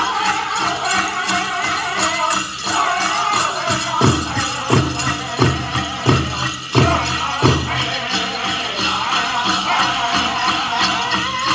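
Powwow big drum and singers performing a chicken dance song: high-pitched group singing over a steady drumbeat, with six heavier, louder drumbeats evenly spaced through the middle. Bells on the dancers' regalia jingle along.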